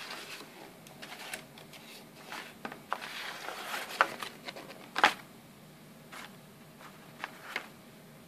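Folded paper instruction sheets being handled and unfolded: crinkling and rustling with sharp paper snaps, the loudest about four and five seconds in.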